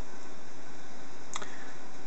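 Small cooling fan on a Hexagon AO 3D-printer extruder running steadily at half power, an even whir-hiss. A single sharp click about a second and a half in.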